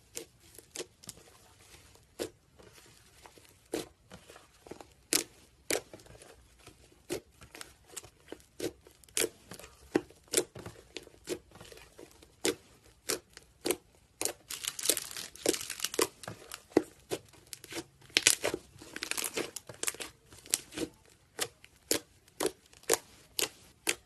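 Slime being squeezed and stretched by hand, making a steady run of sharp pops and crackles about two a second, with denser crackling about two-thirds of the way through.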